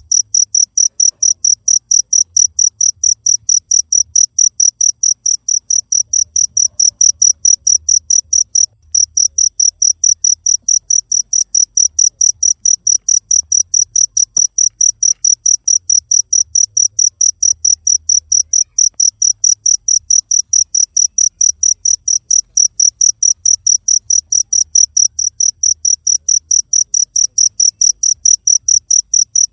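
Cricket chirping in a fast, even pulse, several high-pitched chirps a second, with one short break about nine seconds in.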